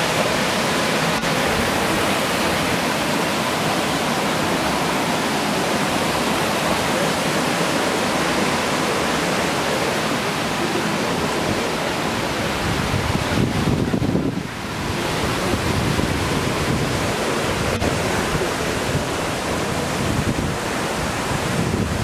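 Steady rush of water over the small cascades of the Ras el-Ma river. A brief low rumble rises about two-thirds of the way through, followed by a short drop in level.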